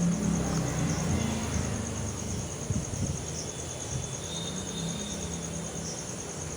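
Steady, evenly pulsed high chirping of a cricket, with a low hum that fades over the first couple of seconds and a few faint clicks about three seconds in.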